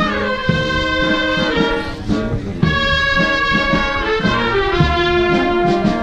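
Marching brass band playing, with sousaphone and horns holding long notes over a regular drum beat.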